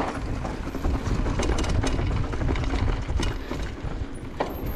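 Mountain bike rolling fast down a loose, dusty dirt trail: tyres on dirt, with the chain and frame rattling in quick irregular clicks over the bumps and wind rumbling on the microphone.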